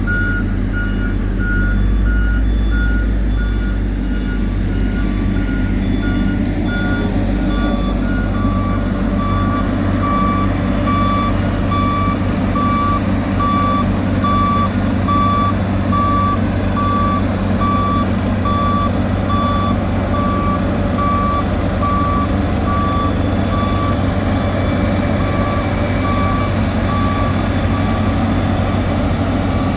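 Reversing alarms on heavy road-paving machinery beeping in a steady repeated rhythm, one higher-pitched alarm fading out early while a lower one carries on, over the steady running of a large diesel engine.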